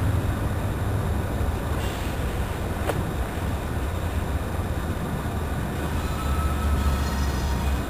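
Diesel locomotive approaching with its engine rumbling low and steady, the rumble growing a little louder near the end.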